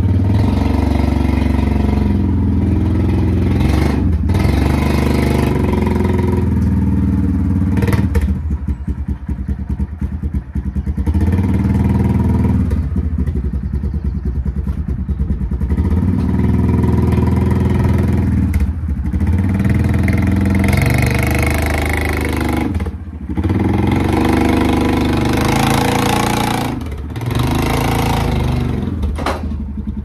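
Quad bike engine running and revving up and down as it pulls a round hay bale on a bale carrier, with a few clanks along the way.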